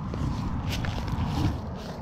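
Footsteps on short grass, over a steady low rumble.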